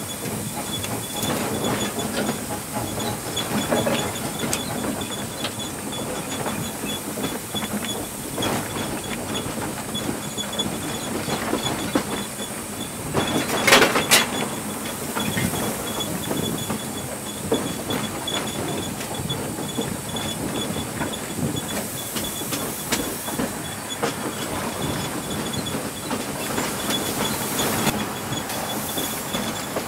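Pennsylvania Railroad steam locomotive 643 heard from its cab while under way: a steady rumble and hiss with frequent clicks and knocks. A brief loud burst of noise comes about halfway through.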